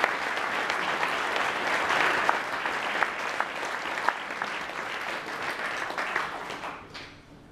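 Audience applauding, the clapping fading and dying away near the end.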